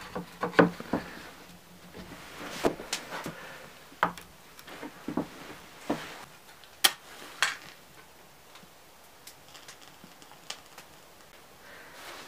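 A series of irregular knocks and clicks, several of them sharp and loud in the first eight seconds, then fewer and fainter.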